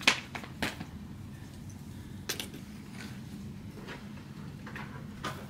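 Handling noise: a sharp clack as something is picked up or set down, then a few lighter knocks and clicks, over a steady low room hum.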